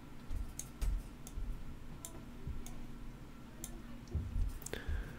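Computer mouse clicking irregularly as a map is dragged across the screen, with soft low knocks of the mouse moving on the desk.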